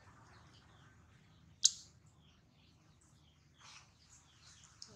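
Baby monkey's faint high-pitched squeaks, with one short, sharp, much louder squeak about a second and a half in.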